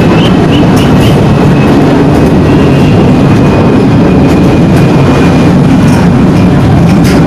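New LRT-1 light rail train moving slowly along the station track: a loud, steady low rumble with a faint high whine for the first few seconds and a few sharp clicks.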